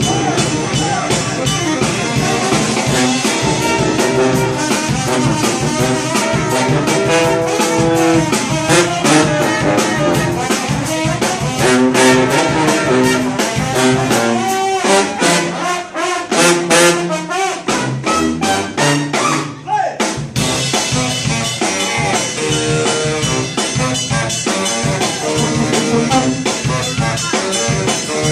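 Brass band with saxophone playing an up-tempo tune, horns over a steady drum beat, with a thinner stretch in the middle where the drum hits stand out.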